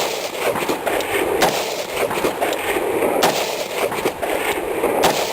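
Rifle shots fired in a string during a practical rifle course of fire: several sharp cracks, the loudest about every second and a half to two seconds.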